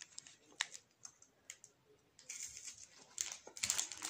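Faint crinkling and clicking of a sweet's wrapper being handled: a few sharp ticks early, then a denser crackle in the second half.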